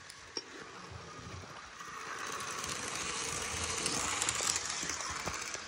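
Model train's electric motor and wheels running along the track. It grows louder as the train comes near and passes, then eases off, with a few light clicks.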